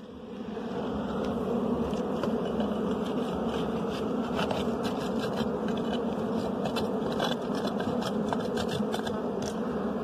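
A disturbed honeybee colony buzzing around its opened comb: a dense, steady hum that swells over the first second. Light ticks and scrapes come through in the middle seconds.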